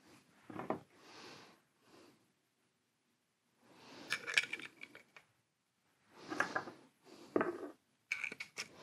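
Stanley No. 1 hand plane being put back together by hand: its small cast-iron and steel parts click and clink against each other in a few short bursts. A cluster of ringing clinks comes in the middle and more near the end, with faint handling rustle between.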